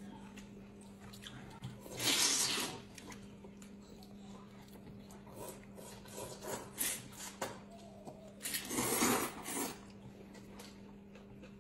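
Noodles being slurped up from chopsticks: two long, loud slurps, about two seconds in and again around eight and a half seconds, with shorter, softer slurps and mouth sounds between, over a steady low hum.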